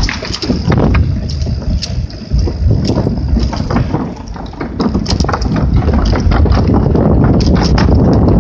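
Wind buffeting the microphone of a bicycle rider's phone, a heavy low rumble, with irregular clicks and clatter from the tyres rolling over a wooden bridge deck.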